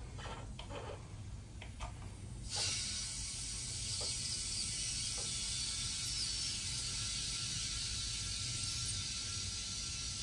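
A few faint clicks, then about two and a half seconds in compressed air starts hissing steadily through an air chuck into a motorcycle tire, inflating it to seat the tire's beads on the rim.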